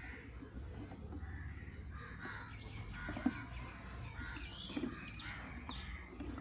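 Birds calling and chirping in the background, with a low steady hum and a single sharp click about three seconds in.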